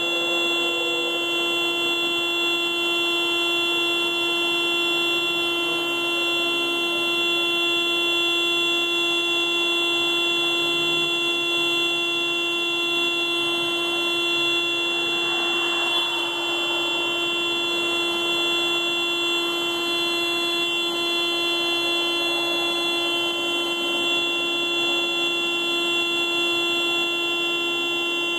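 Car alarm sounding as one continuous, unbroken horn-like tone at a steady pitch and level, with no pulsing or breaks.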